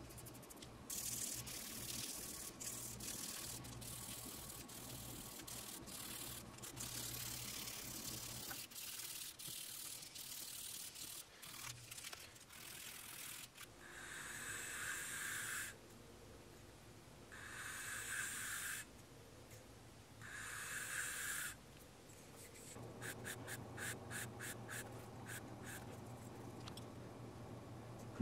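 Light rubbing and handling noise, then three long strokes of a white oak saxophone mouthpiece's table drawn across sandpaper on a flat granite surface plate, then a run of quick short strokes: the table being sanded flat.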